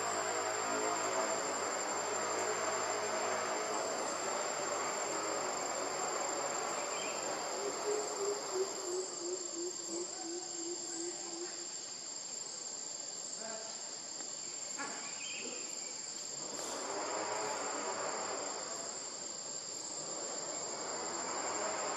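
Steady, high-pitched chorus of forest insects, an unbroken buzzing trill. Partway through, a run of low repeated notes, about three a second and slowly falling in pitch, sounds for a few seconds.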